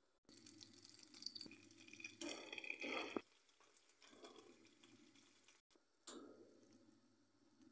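Chicken vermicelli soup bubbling in a pot, stirred with a wooden spoon. About six seconds in, melted butter with red pepper is poured from a small pan into the soup, a sudden splash that fades away.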